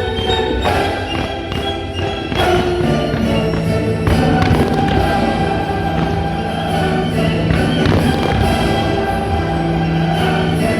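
Orchestral music with long held notes, broken by a few firework bangs, the mix of a pyromusical fireworks show.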